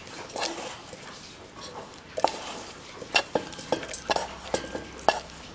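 Wooden spatula scraping a non-stick pan as fried onion-and-spice masala is pushed out into a steel mixer-grinder jar for grinding. Light scraping at first, then a scatter of sharp taps and knocks from about halfway through.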